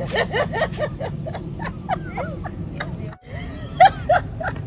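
People laughing in quick short bursts, with a louder pair of laughs near the end, over a steady low hum.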